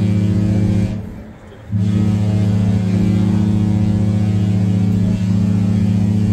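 A cruise ship's horn blowing long, deep, steady blasts, with a short break about a second in. It is the horn sounded as the ship sets off on departure.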